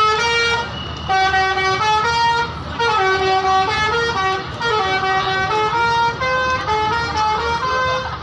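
Tour bus's Basuri 'telolet' musical air horn playing a tune: phrases of quick stepped notes, repeated with short breaks between them.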